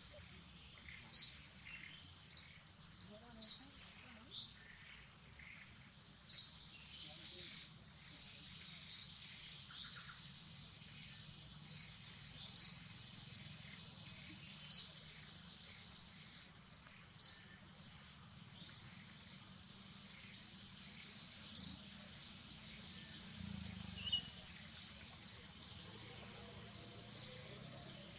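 A bird giving short, sharp, high chirps, about a dozen of them spaced a second or a few seconds apart, over a faint steady high-pitched whine and low forest background noise.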